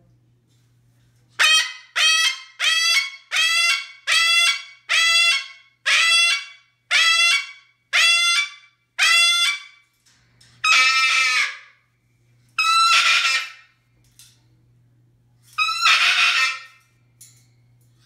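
Moluccan cockatoo screaming "ahhh": a run of about nine short, loud calls a little under a second apart, then three longer, harsher screams a second or two apart.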